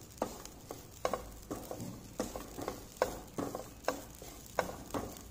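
Spatula stirring and scraping grated coconut roasting in ghee in a nonstick kadai, repeated strokes two or three a second over a low steady sizzle.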